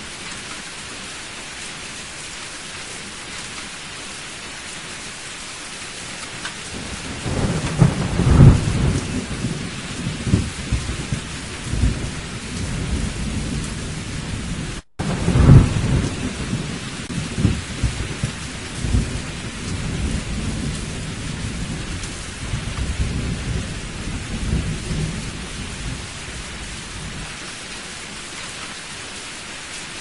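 Heavy rain falling steadily, with a thunderstorm rolling in about a quarter of the way through. Two loud claps come several seconds apart, then rumbling goes on and fades out near the end. The sound cuts out for an instant midway, between the two claps.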